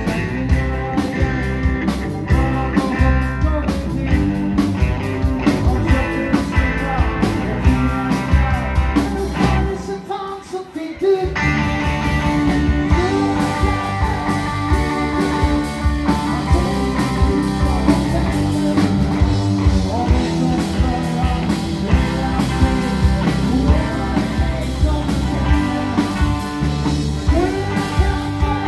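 Live blues-rock band playing electric guitars, bass and drums with a singer. About ten seconds in the band drops out for about a second, leaving a single held note, then the full band comes back in.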